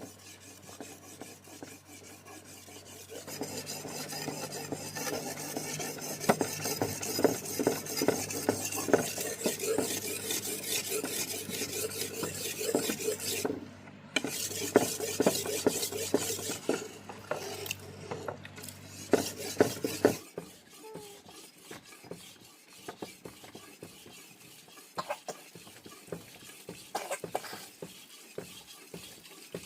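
Utensil scraping and stirring in a cooking pot, with many small clicks over a steady low hum; the stirring pauses briefly in the middle and stops, together with the hum, about two-thirds of the way through, leaving only scattered light clicks.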